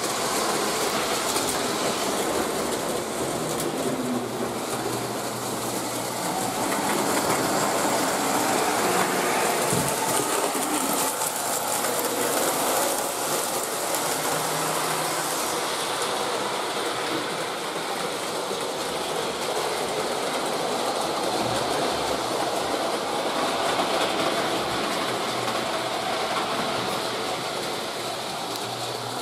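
Postwar Lionel model trains, a steam turbine locomotive among them, running steadily around the track: a continuous whir of electric motors and gears with the wheels rumbling along the metal rails. The sound is brighter in the first half, when a train passes close, and softens a little after about halfway.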